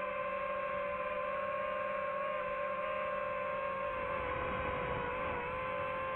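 FPV quadcopter motors whining steadily, the pitch sagging slightly about five seconds in, with a rougher rushing noise joining from about four seconds.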